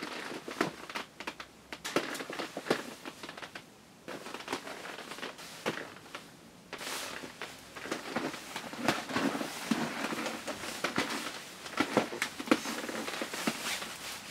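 Shiny nylon trousers and satin football jersey rustling and crinkling as the wearer moves and turns. The rustling comes in uneven rushes, with a short lull about four seconds in, and grows busier from about seven seconds on.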